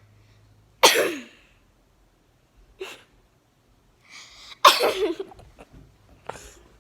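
A person sneezing twice, about a second in and again near five seconds, with a quick breath in just before the second sneeze and smaller sniffs or breaths between.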